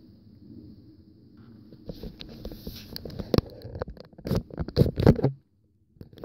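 Handling noise from a phone camera being swung around and carried: irregular rubbing, knocks and bumps that grow louder from about two seconds in. Near the end the sound drops out completely for about half a second.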